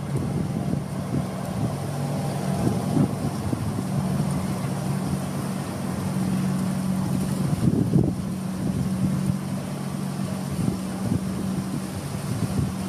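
Motorboat engine droning steadily as the boat runs across the water towing a water-skier, with gusts of wind buffeting the microphone.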